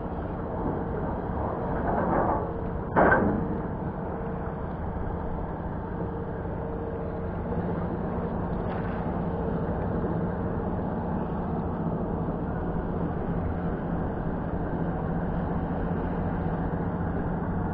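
Boat engine idling steadily with a low hum, with a brief faint voice about two seconds in and a short knock about three seconds in.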